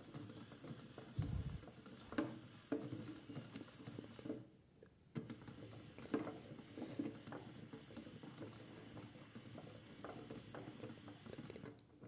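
Toy AEG Lavamat washing machine's small motor turning the drum, with a steady high whine and wet laundry sloshing and splashing in the water. It stops for a moment about four and a half seconds in, starts again, and stops near the end.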